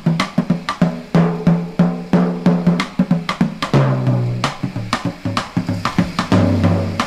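Background music with a steady drum beat over sustained bass notes that change pitch every second or so.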